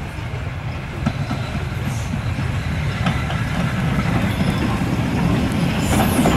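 LMS Ivatt Class 2 2-6-0 steam locomotive 46521 and its passenger coaches running towards the listener on the rails. A low rumble with scattered wheel clicks grows steadily louder as the train approaches.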